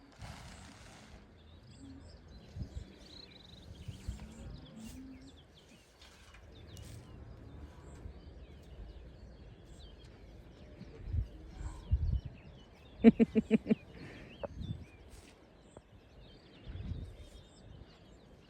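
Quiet rural ambience with small birds chirping. There are a few low thumps, and about thirteen seconds in comes a quick run of about six short pitched pulses.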